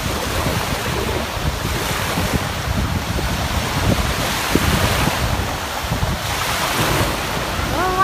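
Waves breaking and washing around in shallow surf, with wind buffeting the microphone.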